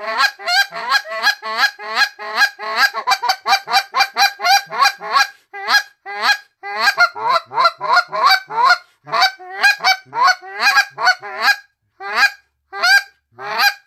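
Rapid run of buzz clucks blown on a Next Gen Mr. Big goose call: short, buzzy Canada goose clucks made with air pressure and no voice, on a higher-pitched call. They come about four a second, then thin out to spaced single clucks over the last few seconds.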